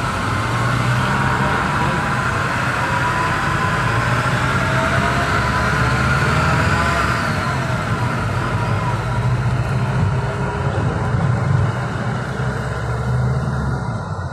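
Engine and road noise heard from inside a vehicle's cabin while driving in city traffic: a steady low hum with a faint wavering whine above it.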